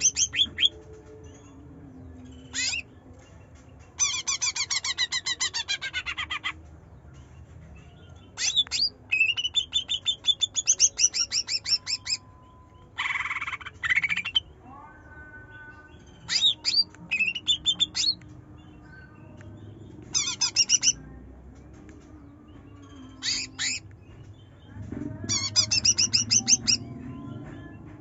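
Greater green leafbird (cucak ijo) singing in loud bursts of rapid, repeated chattering notes. Each phrase lasts one to two seconds, with short pauses between.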